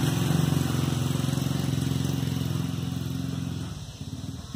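An engine running steadily with a low hum, fading away near the end.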